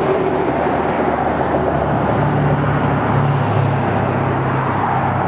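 Steady road traffic noise with a low engine hum that steps up in pitch about two seconds in.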